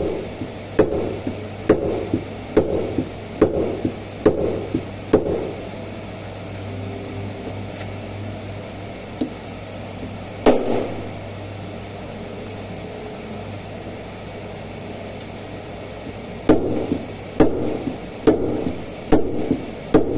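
Panel beating: a body hammer knocking on a car's sheet-metal panel in slow, regular blows just under one a second, each with a short ring. There is a run of about seven blows, a pause broken by a single blow, then another run near the end.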